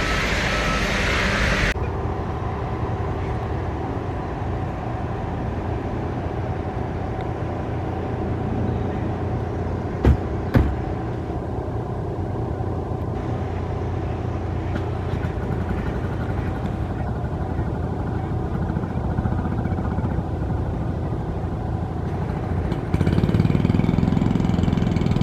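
Steady low engine rumble, with two sharp knocks about ten seconds in. A louder low hum comes in near the end.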